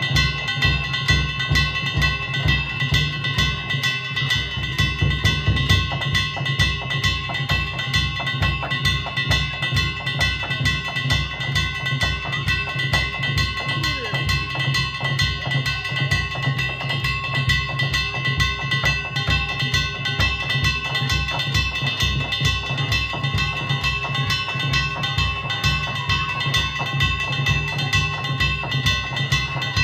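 Danjiri festival music: a large taiko drum beating a steady, regular rhythm, with small hand-struck gongs (kane) ringing over it.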